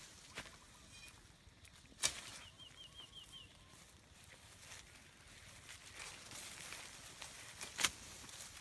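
Faint outdoor ambience broken by a few sharp clicks or knocks, with a quick run of about six high chirps from a small bird a little over two seconds in.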